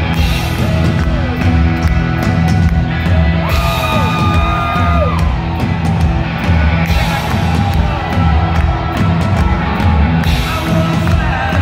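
Live rock band playing loud in an instrumental passage, heard from the audience: drums and bass under electric guitars, with a lead line of long held and bent notes.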